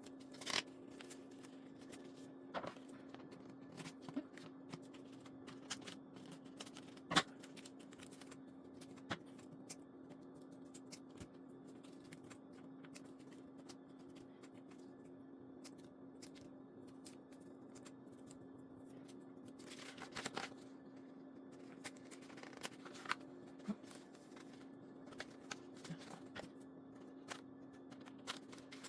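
Scattered rustles and light taps of stickers and paper being peeled, placed and pressed onto a planner page, over a steady low hum.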